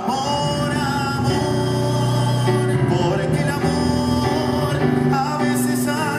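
Live music: an instrumental passage of a slow romantic ballad between sung lines, with keyboard accompaniment and steady held notes.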